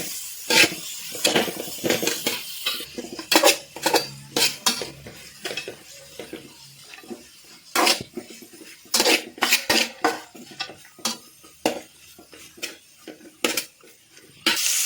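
A spoon scraping and clinking irregularly against a pan while stir-frying chopped carrot, cabbage, onion and green chilli in hot oil, with a faint sizzle. Just before the end a loud, steady sizzle starts.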